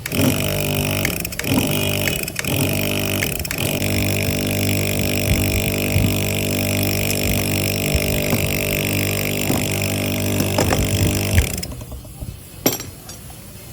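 A motor-driven machine starts suddenly and runs with a steady hum, wavering a few times in the first few seconds, then stops about eleven and a half seconds in. A sharp click follows a second later.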